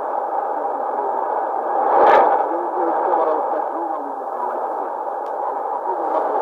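Shortwave AM broadcast of Kyrgyz Radio 1 on 4010 kHz coming through an Icom R75 receiver: a weak, band-limited signal in steady hiss and static, with the programme only faintly audible under the noise. A sharp static crackle comes about two seconds in.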